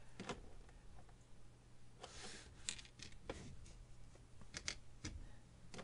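Faint handling of small plastic Lego pieces: a few scattered sharp clicks and light rustles as bricks are fitted together, over a low steady hum.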